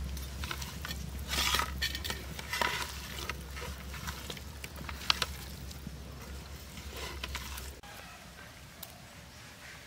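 Bare hands squishing and mixing fish pieces with sliced onions and a wet spice paste in a steel plate: irregular wet squelching and rustling, with one sharp click about five seconds in. Near the end it drops to a quieter outdoor background.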